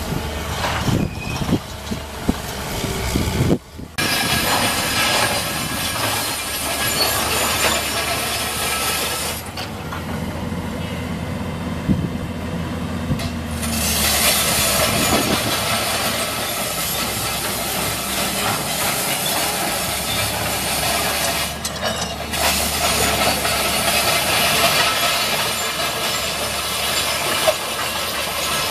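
Keihatsu 921C 20-ton hydraulic crawler excavator at work: its diesel engine running steadily under load while the bucket drags and scrapes across gravel, with rattling and clanking from the machine and stones. The sound breaks off briefly about four seconds in and again near the twenty-second mark.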